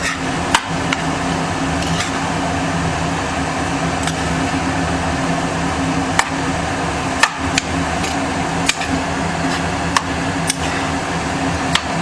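A metal spoon knocking and scraping against a cooking utensil at irregular intervals as a potato-and-coriander filling is stirred, over a steady low hum from a fan.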